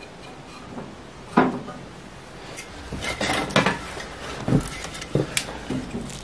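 A few sharp clanks and knocks of hard objects, metal and wood, spaced irregularly: one about a second and a half in, a quick cluster around the middle, and several more near the end.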